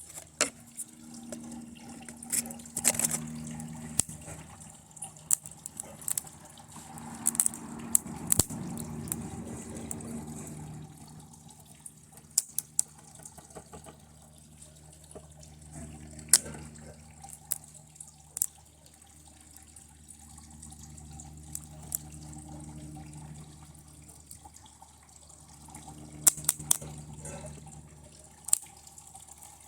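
Circuit board being burned by high current from a lead-acid battery: crackling and sizzling with many sharp, irregular pops, over a low hum that comes and goes.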